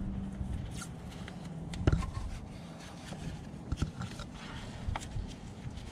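Leather-gloved hands taping up the end of a disconnected battery cable: rustling and small clicks of handling and tape, with one sharp knock about two seconds in. A low steady hum sounds underneath and stops around the same time.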